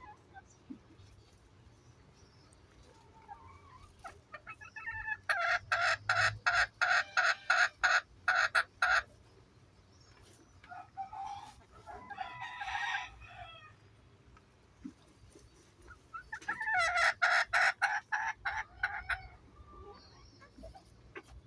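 Chickens calling in three loud bouts of rapid, repeated clucks and cackles, with fainter clucking between them.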